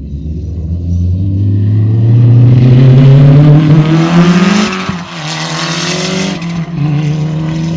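Rally car engine accelerating hard, its note climbing steadily in pitch for about four and a half seconds and loudest around three seconds in. About five seconds in the engine note dips and drops in pitch, then it holds a steady, slightly lower note.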